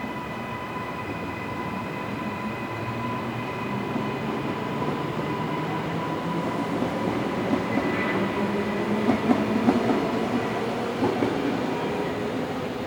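Jet airliner engines at takeoff power, a steady whine over a rushing noise, growing louder to a rough peak about nine to ten seconds in, then easing as the aircraft departs.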